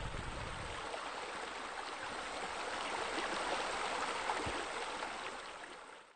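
Water falling and splashing steadily into a pool from spout water features, a low rumble dying away about a second in, then the water sound fading out in the last second.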